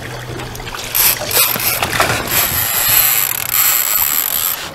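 Fishing reel drag giving a steady high whine as a hooked sturgeon takes line, starting about a second in and stopping just before the end. A boat motor hums low underneath.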